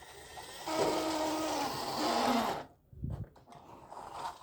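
Toy army helicopter whirring as it is pushed along by hand, for about two seconds, then a low bump about three seconds in.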